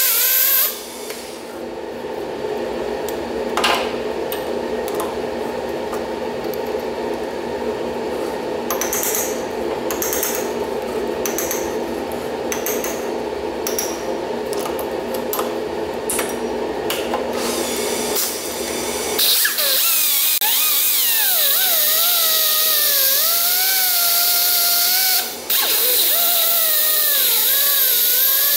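A metal lathe runs steadily with a titanium tube spinning in its chuck. An air die grinder with an abrasive wheel whines against the spinning tube to finish its surface, at the very start and again from about 19 seconds in, its pitch wavering up and down as it is pressed on and eased off. The grinder drops out briefly about 25 seconds in.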